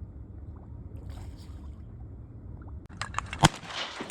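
A steady low rumble, then about three and a half seconds in a single loud shotgun shot at a duck.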